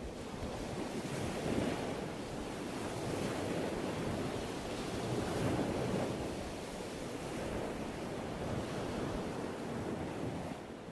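Ocean surf: waves breaking and washing in a steady rush that swells and eases every few seconds.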